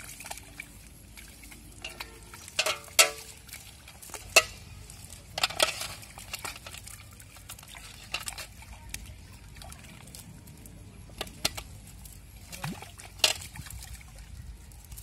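Small fish splashing into shallow pond water and slapping about at the water's edge: a scatter of short, sharp splashes and slaps, the loudest about three seconds in, again just after four seconds, and once more near the end.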